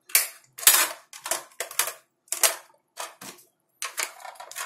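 Irregular string of sharp clicks and clacks as the parts of a homemade airsoft bolt-action rifle are handled and fitted together by hand, with the side locking plate being closed onto the receiver.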